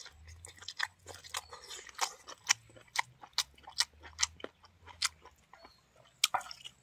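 Close-up chewing and wet lip-smacking of a person eating a mouthful of buffalo meat by hand, sharp smacks coming about three a second.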